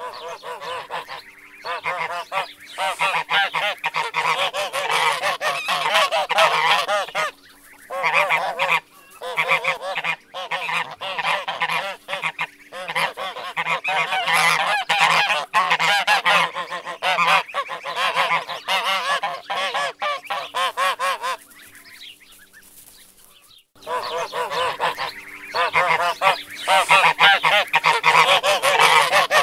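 A flock of geese honking, many calls overlapping almost without a break, with a quieter pause of about two seconds late on before the honking starts again.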